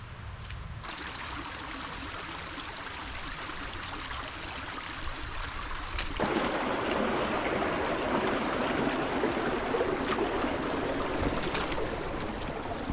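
Rushing water of a stream, a steady noise that grows louder and fuller about six seconds in.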